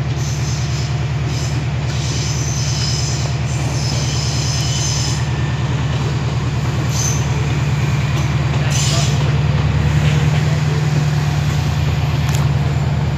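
Diesel multiple unit (a Class 165 coupled to a Class 172 Turbostar) running, a loud, steady, deep diesel engine drone. High-pitched wheel squeals come and go over the first few seconds and again a little later.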